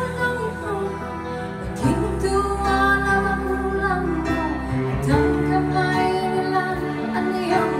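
Live band playing a slow song: singing over electric guitar and bass, the bass holding long notes that change every few seconds.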